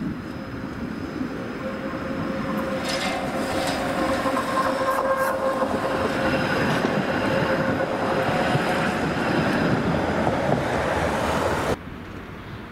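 Tram passing close by on curved track, growing louder as it approaches, with a steady high whine over the rumble of its wheels on the rails. The sound cuts off abruptly about a second before the end, leaving quieter street noise.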